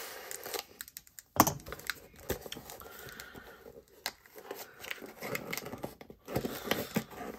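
A shipping package being opened by hand: irregular tearing, crinkling and handling noises, with a sharper click about a second and a half in.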